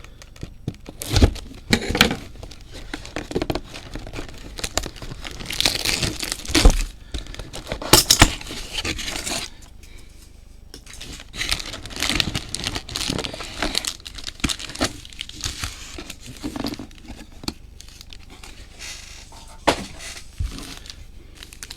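Wrapping and cardboard crinkling and tearing as a sealed box of trading cards is opened, irregular crackles with a few sharp snaps.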